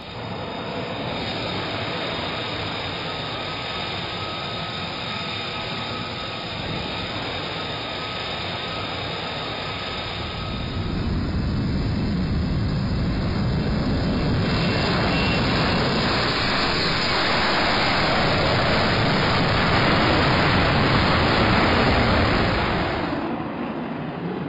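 F-35B Lightning fighter jet's single Pratt & Whitney F135 engine. It starts as a steady whine with faint high tones, then about eleven seconds in it rises to a louder, fuller rush at takeoff power for a short takeoff off a ski-jump ramp, easing near the end.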